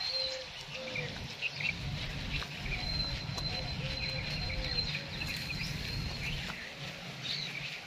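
Outdoor ambience of birds chirping and calling, with short repeated low calls and a thin high whistle in the middle, over a steady low rumble.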